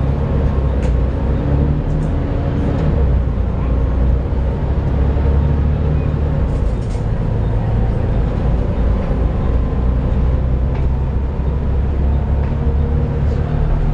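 Volvo B7TL bus's six-cylinder diesel engine running in a steady, heavy low drone, with steady tones above it.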